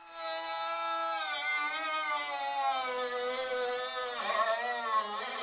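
Cordless rotary tool spinning a small abrasive cutoff wheel into rusted sheet steel, a high-pitched motor whine whose pitch dips and wavers as the wheel bites and cuts.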